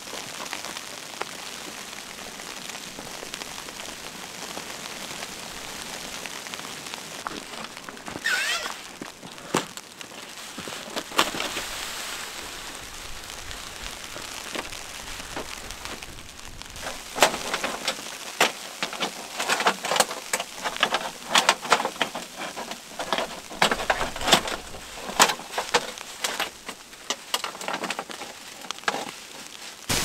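Wind-driven snow hitting tent fabric and a nylon jacket: a steady hiss with many sharp ticks that grow denser in the second half. Gloved hands rub and scrape on the tent's fabric, with a brief scraping burst about 8 seconds in.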